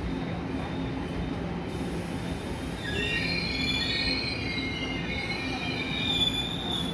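Tze-Chiang express train running into a station over a steady low rumble and hum. From about three seconds in, its wheels squeal with several high, wavering tones as it slows.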